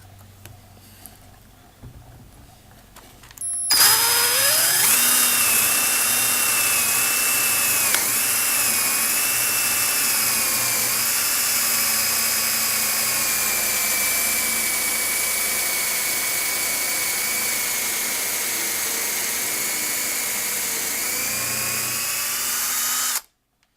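Handheld electric drill starting about four seconds in and boring a hole into a wooden board: its motor whine rises quickly to a steady pitch, dips briefly a couple of times under load, and stops abruptly near the end.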